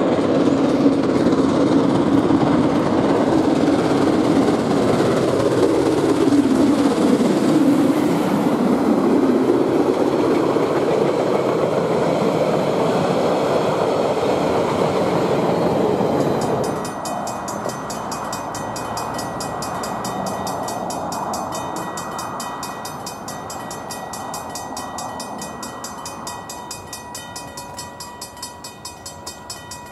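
Steam-hauled train passing close at speed, wheels and carriages rolling by and a DFB diesel locomotive going past at the rear. About halfway through, a sudden change to the steam locomotive Jb 1236 heard from a distance as it approaches, quieter, with a fast, even exhaust beat.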